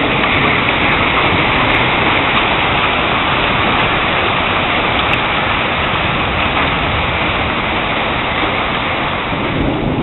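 Heavy storm rain pouring down, a loud, steady hiss with no letup.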